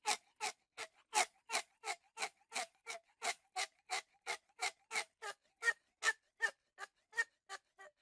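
A steady rhythm of short, sharp clicks, about three a second, with silence between them: a percussive beat laid over the pictures.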